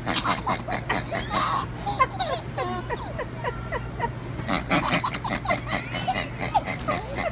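Baby laughing in a string of short giggling bursts.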